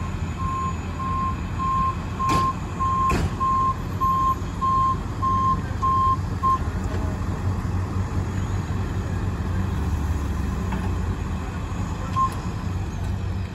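Ambulance's backup alarm beeping one steady tone, a little under twice a second, as it reverses into position; the beeping stops about six and a half seconds in. Its engine runs low underneath throughout, with two sharp clicks about two and three seconds in.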